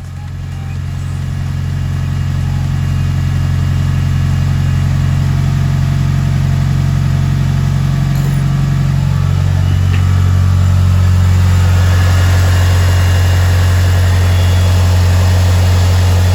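Mitsubishi Lancer Evolution's 4G63 turbocharged four-cylinder engine idling steadily. Its idle speed drops to a lower, steady idle about nine seconds in.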